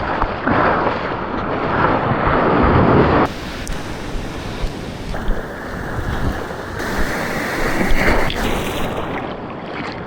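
Ocean water sloshing and splashing around a surfboard being paddled out through the surf, with wind noise on the action camera's microphone.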